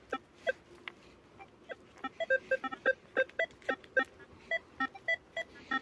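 Versa metal detector giving short beeps in a low and a higher pitch, several a second, as the coil is swept over a very weak target signal.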